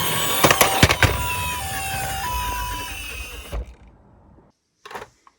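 Toy minicar's electronic two-tone siren, alternating steadily between a lower and a higher pitch like an ambulance hi-lo siren, with a few sharp plastic clicks about a second in. It fades and stops a little after three seconds in, followed by a couple of brief knocks.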